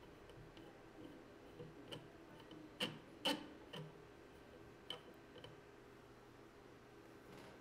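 Microscope objective lens being threaded by hand into the revolving nosepiece: a scatter of small, sharp clicks and ticks of metal parts, the loudest pair about three seconds in.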